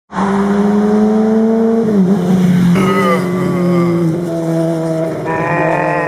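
Motorcycle engine running under throttle, its pitch climbing steadily and then dropping about two seconds in; further engine notes follow, changing in pitch.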